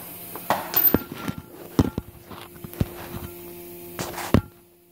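Scattered metal clinks and knocks as a lug nut and socket are handled and set in a steel bench vise, the loudest about two seconds in and near the end, over a steady low hum.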